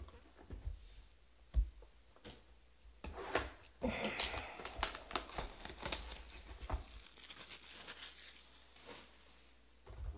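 Plastic wrapping being torn and crinkled as a sealed box of trading cards is opened, with a few light knocks at first and the busiest crackling from about three to seven seconds in.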